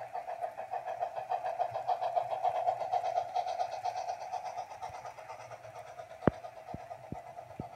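HO scale model train rolling past on the track: a steady fluttering hum that swells and then fades as the locomotive and freight cars go by, with a few sharp clicks near the end.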